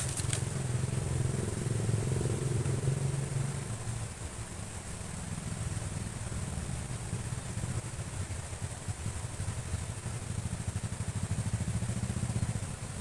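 A small engine running nearby as a low, fluttering drone that swells a little over the first few seconds, with a couple of sharp clicks at the very start.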